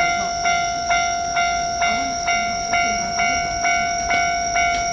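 Japanese railway level crossing warning bell ringing in a steady 'kan-kan' rhythm, about two strikes a second, signalling that a train is approaching and the barriers are down.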